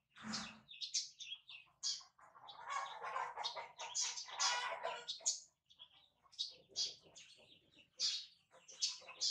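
Baby monkey giving repeated short, high-pitched squeaks and chirps while being cleaned. About two seconds in, a denser, rougher run of calls lasts several seconds.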